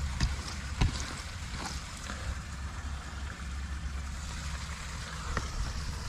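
Steady low rumble and hiss, with a few sharp knocks from handling a plastic pond-filter basket, the loudest about a second in.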